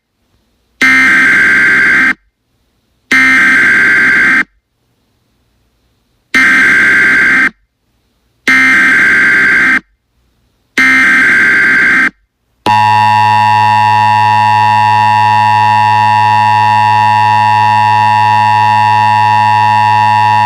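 Emergency Alert System data header: five buzzy, screeching bursts of digital data, each about a second and a half long with short silences between. About twelve seconds in, a steady, harsh EAS attention tone starts and holds for about eight seconds.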